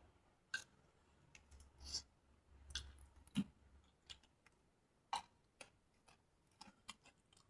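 Almost quiet, broken by scattered faint clicks and ticks at irregular intervals, with a few sharper ones at about three and a half and five seconds in.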